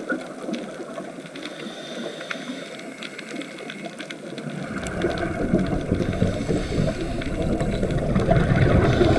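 Underwater noise on a dive: a steady rushing, churning water sound with scattered faint clicks, turning deeper and louder about halfway through.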